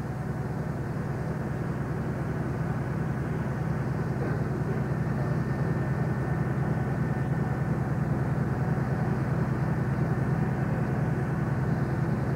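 A steady, low mechanical rumble with a fast, even pulse, growing slowly louder, like a large engine or machine running.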